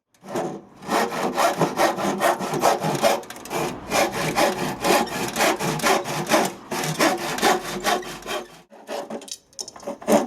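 Hand saw cutting through timber in quick back-and-forth strokes, trimming a lip of old floor wood; the sawing pauses briefly near the end, then starts again.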